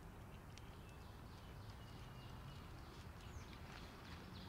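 Faint birdsong: scattered short chirps and brief whistles over a quiet background.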